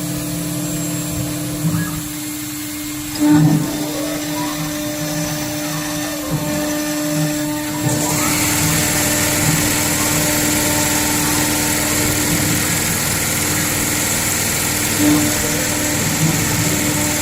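CNC router spindle running and cutting aluminium, a steady whine. About eight seconds in, a louder, higher hiss joins and holds.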